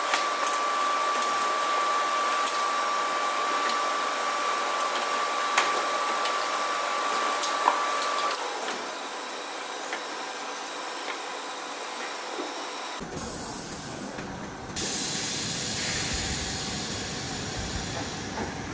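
Steady hiss of assembly-line machinery with a thin high whine and scattered light clicks as prismatic battery cells are set into the stacking fixture. The whine stops about eight seconds in and the noise eases. About 13 s in it changes suddenly to a deeper, fuller machine rumble that grows louder a couple of seconds later.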